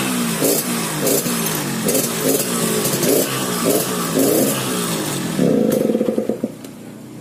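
Yamaha RX-King's 135 cc single-cylinder two-stroke engine through a hollowed-out 'bobokan' exhaust, with the snoring 'ngorok' note this tuned exhaust is set up for. It is revved in quick repeated throttle blips, about one every half-second or so, then held up in a short burst about five and a half seconds in before dropping away much quieter near the end.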